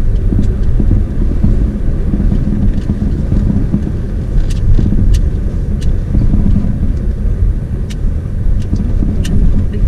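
A car driving in slow city traffic, heard from inside the cabin: a steady low rumble of engine and tyres, with a few sharp clicks or taps scattered through the second half.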